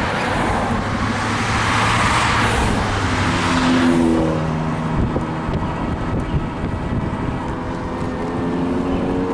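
A car passes close by, rising and fading over the first four seconds, then car horns sound in several held tones over ongoing traffic noise.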